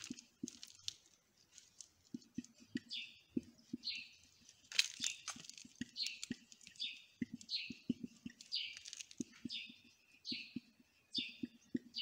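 Whiteboard marker squeaking across a whiteboard as letters are written: a run of short, high squeaks, roughly one per stroke, with faint taps of the pen between them.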